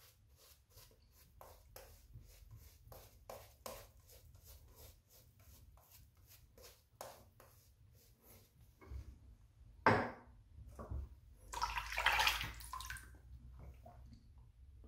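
Boar-bristle shaving brush swishing and dabbing lather onto the face and neck, a quick run of soft strokes about two or three a second. About ten seconds in there is a sharp knock, then a short burst of louder rustling.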